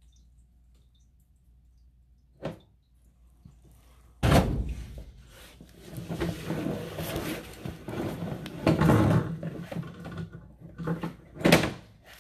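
Sewer inspection camera's push cable being pulled back through the pipe: a sharp knock, then a long run of rattling and scraping with heavy thumps.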